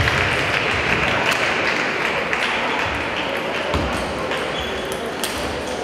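Table tennis balls clicking off tables and bats, scattered and irregular, over the steady background noise of a large sports hall.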